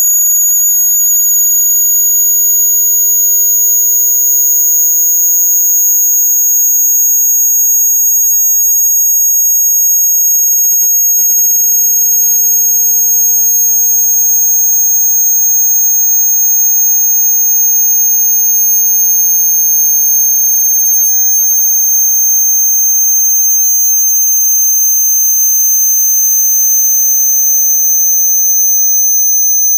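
A single pure high-pitched sine test tone, part of a loudspeaker frequency sweep, gliding very slowly and steadily downward in pitch at a constant loudness.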